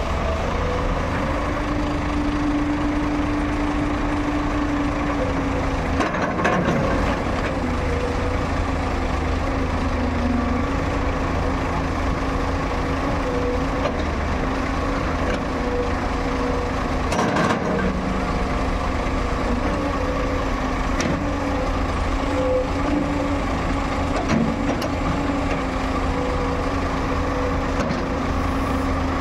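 JCB JS205 LC tracked excavator working: its diesel engine running steadily under load with a held hydraulic whine as the boom and bucket dig soil, and two short knocks about six and seventeen seconds in.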